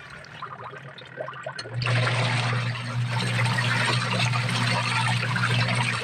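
Washing machine wash tub with water and clothes: light splashing at first, then about two seconds in the pulsator motor starts with a steady hum, and the water and clothes churn and slosh around the tub.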